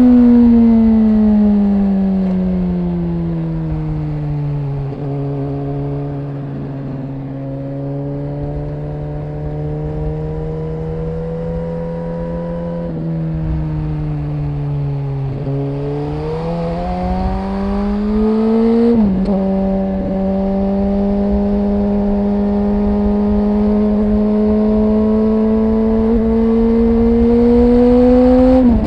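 Suzuki GSX-R 1000 inline-four engine and exhaust under way. The engine note falls as the bike slows over the first few seconds, then settles low. After a couple of gear changes it climbs hard under acceleration. It jumps down at a shift about two-thirds through, then rises slowly again until another shift right at the end.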